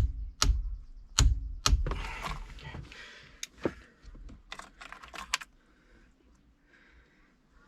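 Irregular sharp clicks and knocks of tools and parts being handled at a steering wheel, the loudest within the first two seconds, with a rustling stretch from about two to three seconds and a quick cluster of clicks around five seconds.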